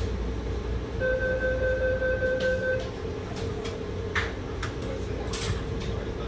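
Steady low rumble inside a Wenhu line metro train car, with a single electronic beep held for about two seconds about a second in, then several sharp clicks.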